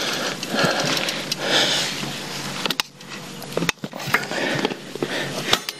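YT Jeffsy mountain bike ridden over a rocky dirt trail: tyres rolling and crunching over dirt and rock, with many sharp clicks and rattles from the bike and a brief lull about three seconds in.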